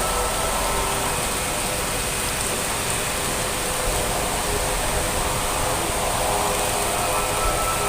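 Heavy rain falling: a steady, even hiss of downpour.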